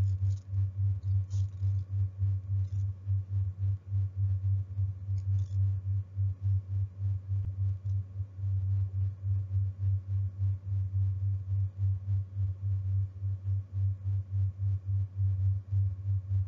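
A low, steady hum that throbs about three to four times a second, with no speech over it.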